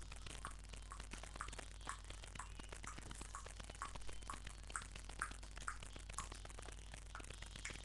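Faint, irregular light clicks and taps, several a second, over a steady low electrical hum.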